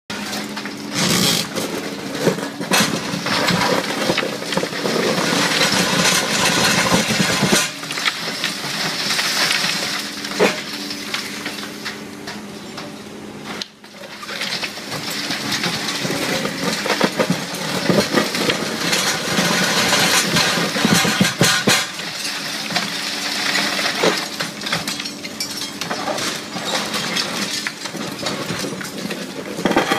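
Hydraulic concrete crusher on an excavator arm biting through a concrete wall: continuous grinding and crumbling of concrete with sharp cracks now and then as pieces break off. Under it runs the steady hum of the excavator's engine and hydraulics.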